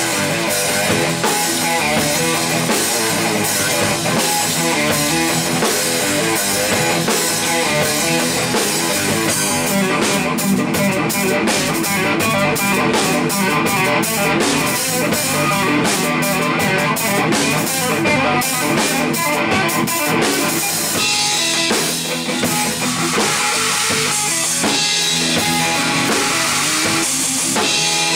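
Instrumental rock trio playing live: electric guitar, electric bass and drum kit, loud and continuous. The playing changes texture about a third of the way in and again about three quarters through.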